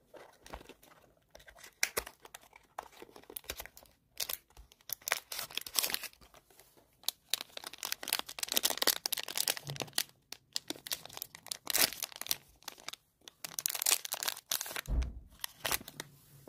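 Foil wrapper being crinkled and torn open by hand to unwrap a disposable vape, after its cardboard box is opened, in irregular bursts of rustling and tearing. A dull thump near the end.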